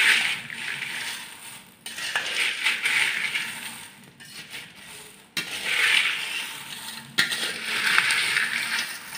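Crisp fried corn flakes and peanuts being tossed with a perforated metal frying spoon in a steel vessel: dry crunchy rustling in about four sweeps, with sharp clinks of the spoon against the vessel between them. The spices are being mixed in gently so the flakes don't break.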